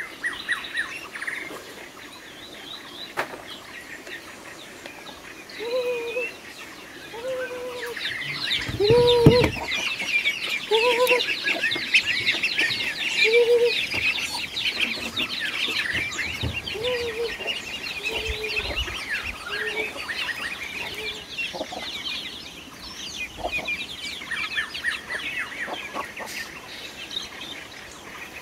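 A hen clucking in short calls a second or so apart, over a crowd of chicks and ducklings peeping shrilly through the middle of the clip. A low thump stands out about nine seconds in.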